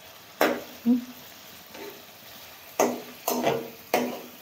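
Slotted metal spatula scraping and knocking against an aluminium pot, stirring chicken pieces frying in oil, about five sharp strokes at irregular intervals. A faint sizzle of the frying meat runs between the strokes.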